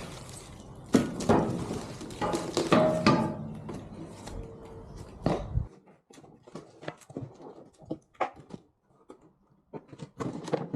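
A string of knocks and clatters, like heavy steel parts of a motorcycle wheel chock being handled and set down, over a steady low hum that cuts off a little past halfway.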